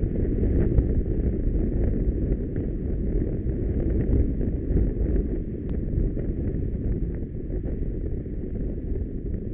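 Steady low rumble of wind buffeting the microphone of a camera on a moving motorcycle, riding between lanes of slow traffic.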